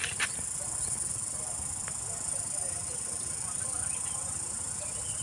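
Cicadas singing in a steady, high-pitched drone, with a couple of light clicks at the very start.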